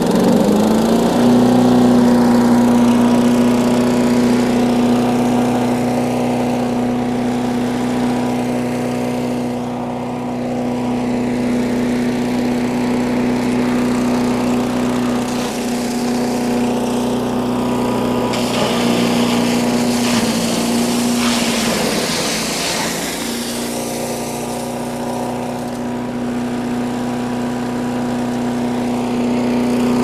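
Harbor Freight chipper shredder's small gas engine catching and revving up to a steady run. From about halfway through, rotted pine 2x12 lumber is fed into it and shredded with a rough grinding noise, and the engine note sags briefly under the load before it recovers.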